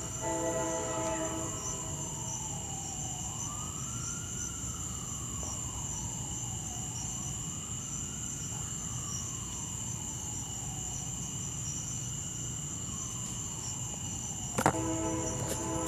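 A siren wailing, its pitch rising and falling slowly about every four seconds. Near the end there is a sharp click, and a steady chord of tones begins.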